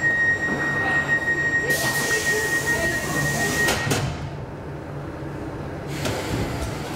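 Stockholm metro C15 train pulling into a station and stopping, with running rumble and a steady high squeal that ends about four seconds in. A loud hiss of air joins about two seconds in and stops with the squeal, leaving a quieter rumble of the standing train.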